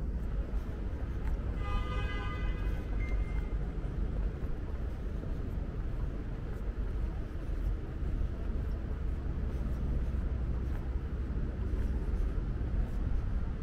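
Steady low rumble of outdoor city ambience. About two seconds in, a brief pitched sound rises above it for under two seconds.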